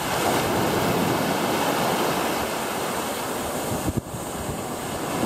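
Surf washing onto a sandy beach, a steady rush of breaking waves mixed with wind buffeting the microphone.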